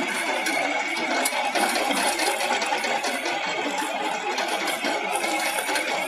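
Tractor-mounted trencher cutting a trench in dry soil: a steady, dense clatter of the cutter chewing through earth and throwing out soil and stones, with the tractor engine running underneath.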